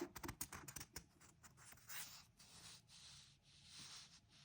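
Faint rustling and light taps of paper leaflets being handled, a cluster of them in the first second, then near silence.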